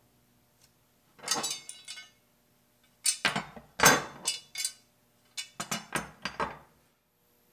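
Metal drift-breaker blades and their wing nuts clinking and knocking as they are handled and shifted, in three short bursts of clatter: about a second in, again around three to five seconds, and once more around five and a half to six and a half seconds.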